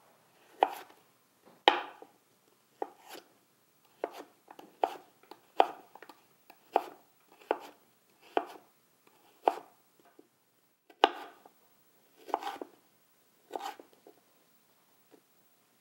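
Chef's knife slicing cucumber planks into julienne matchsticks on a wooden cutting board: a run of separate cuts, about one a second, each blade stroke ending in a light tap on the board.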